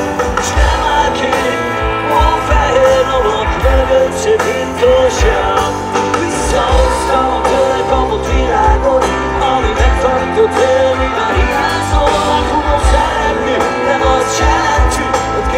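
A live rock band playing through a concert PA, heard from within the audience. A steady kick-drum beat runs under a wavering melodic line.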